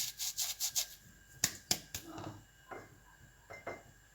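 Dried thyme leaves rubbed and crumbled by hand: a quick run of short dry scratching strokes, then a few sharper clicks around a second and a half in.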